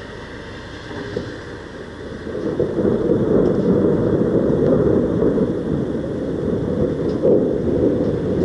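Thunder rumbling: a low, rolling rumble that swells about two seconds in and keeps going.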